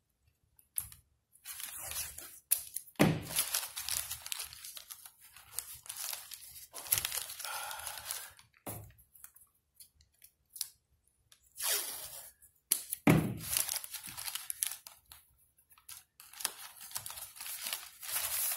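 Green masking tape being pulled off the roll and torn into strips, with newspaper crinkling as it is crumpled and taped around a plastic bottle. The crackling comes in irregular bursts with short pauses between.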